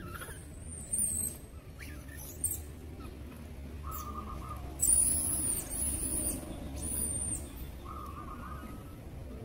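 Monkeys giving short, very high-pitched squeals several times, the loudest about halfway through, with two short lower steady calls between them over a steady low hum.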